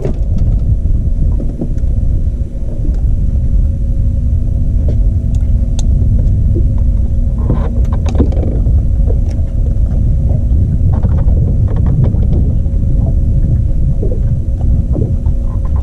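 Steady low rumble of a fishing boat on open water, with a steady motor hum and a few light knocks.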